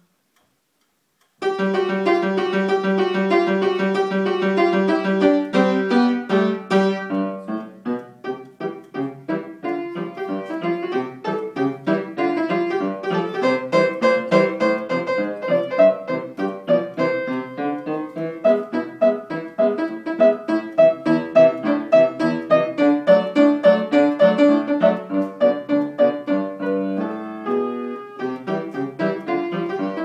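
Upright piano playing a ragtime piece, starting sharply about a second and a half in, with many quick, short notes.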